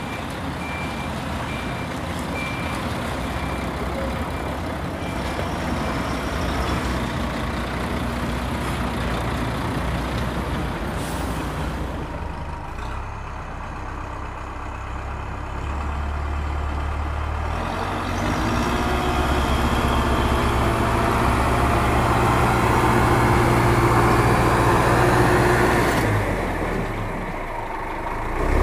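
Heavy truck engine running, with a reversing alarm beeping at an even pace for the first six seconds or so; the engine grows louder about two-thirds of the way through and eases off just before the end.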